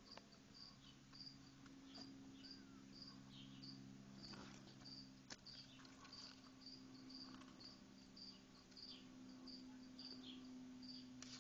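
Faint cricket chirping, short even chirps about twice a second, over a low steady hum.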